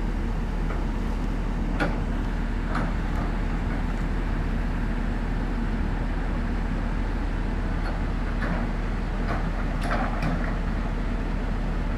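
Heavy diesel engine running steadily at a constant pace, with a few short sharp knocks or clanks about two seconds in and again around eight to ten seconds.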